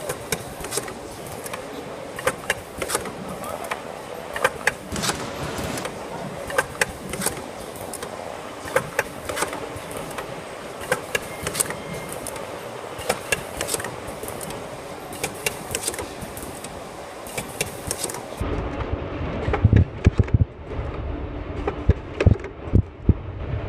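Wet wipe packing machine running: a steady mechanical hum with repeated sharp clacks and knocks from its sealing and cutting heads. About three-quarters of the way through, the sound turns duller, with heavier thumps.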